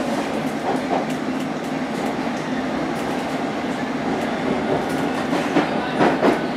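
Steady running noise heard inside a London Underground S Stock carriage in motion: wheels on the track, with a few clicks and knocks from the rails near the end.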